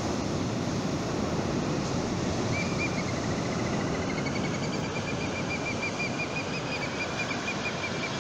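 Steady rush of surf and wind. About two and a half seconds in, a thin, high, slightly wavering tone comes in and holds.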